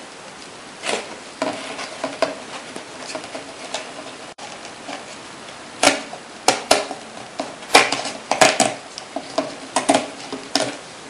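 Scissors snipping through window-screen mesh glued over a plastic cup: sharp snips at irregular intervals, with a lull of a few seconds near the middle.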